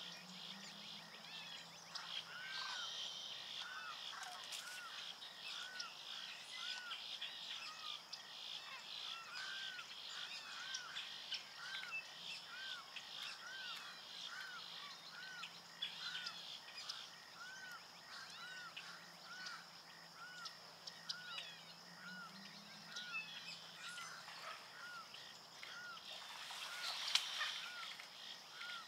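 Outdoor wetland ambience: a short nasal call repeated steadily, a little more than once a second, over a dense high background chorus. Near the end there is a brief louder noise.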